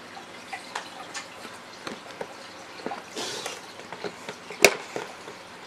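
Light, scattered clicks and taps of needle-nose pliers against blue crimp spade connectors and switch terminals during wiring. There is a short rustle of wire or plastic just after three seconds and one sharp, loud click about four and a half seconds in.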